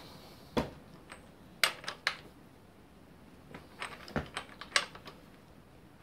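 A long socket bar being worked on the steering stem nut of a motorcycle's top triple clamp, giving a scattered series of sharp metal clicks and taps at uneven intervals.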